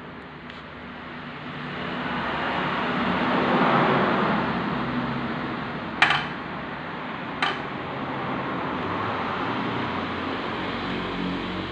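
A motor vehicle's engine running in the background, swelling to a peak about four seconds in and then holding steady. Two sharp knocks come about six and seven and a half seconds in.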